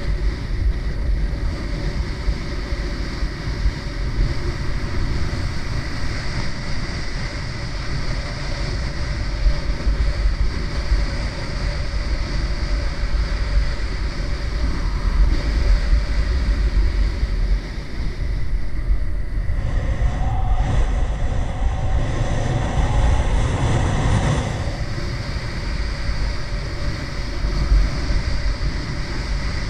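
Wind rushing over the microphone of a skier's head-mounted camera, with skis running on packed snow; a louder scraping stretch comes about twenty seconds in and lasts a few seconds.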